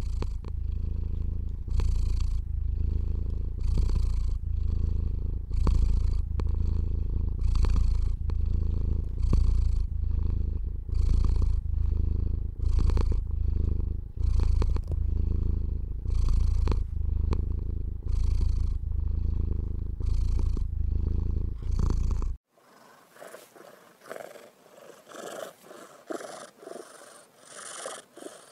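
Domestic cat purring loud and close: a deep rumble that swells and breaks with each breath, about once a second. About 22 seconds in it cuts abruptly to a much quieter, thinner recording with irregular soft pulses.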